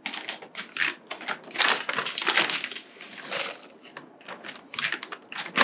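A hand scoop digging into a plastic bag of houseplant potting soil and tipping soil into an empty plastic pot: a string of irregular crunching, rustling scrapes, with the bag crinkling.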